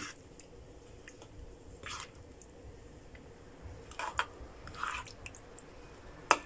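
A spoon turning chicken drumsticks in a thick yogurt marinade in a plastic bowl: a few soft wet squelches, with a sharp click at the start and again near the end.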